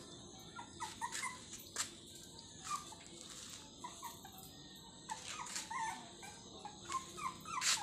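Young puppies whimpering and squeaking in many short, high cries, with a few sharp clicks in between.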